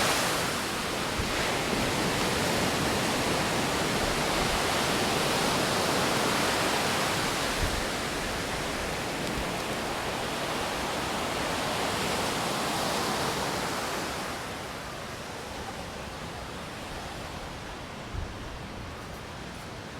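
Steady rushing outdoor noise of wind, rain and surf, which gets quieter about two-thirds of the way through.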